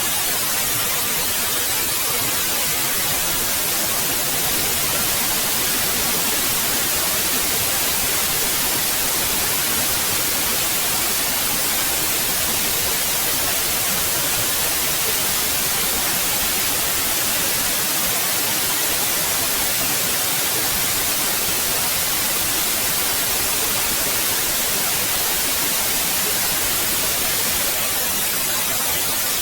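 Steady white noise: an even, unbroken hiss, strongest in the treble, that does not change.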